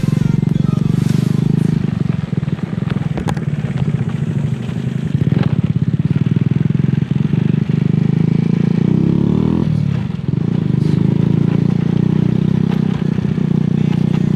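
Motorcycle engine running steadily under way, its note dipping briefly and shifting about ten seconds in.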